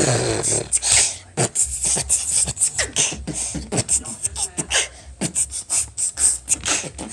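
Beatboxing: a fast, unbroken run of mouth-made percussive clicks and pops with short vocal sounds between them.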